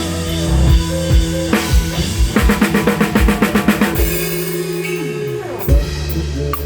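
Live rock band playing, heard close to the drum kit: bass drum and snare hits over sustained low bass and guitar tones. About two seconds in the drums play a fast, even fill; later a falling pitch slide leads into a loud hit.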